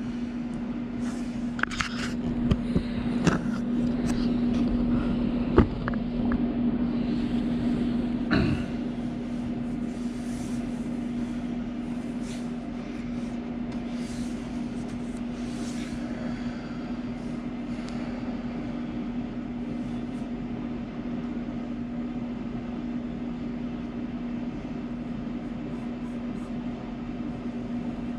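Overhead projector's cooling fan running with a steady hum, while a pencil traces on a pine board in short scratchy strokes. A few knocks and bumps come in the first eight seconds or so.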